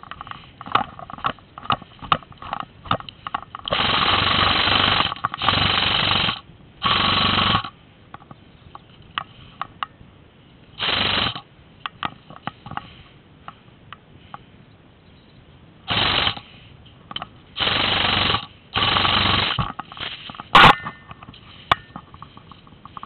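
Airsoft electric gun firing full-auto bursts: seven rattling bursts of about half a second to a second and a half each, with scattered sharp clicks between them. A single sharp crack near the end is the loudest sound.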